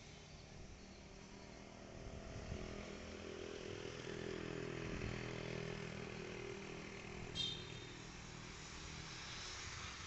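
A distant engine hum that swells over the first few seconds and fades away again, like a motor vehicle passing. A short high chirp sounds once, about seven seconds in.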